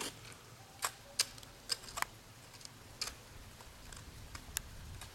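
About half a dozen sharp, irregularly spaced clicks over a faint low rumble.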